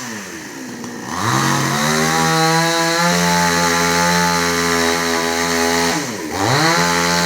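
Chainsaw engine running, dropping low and then revved up to high speed about a second in and held there. It falls back briefly about six seconds in and revs up again.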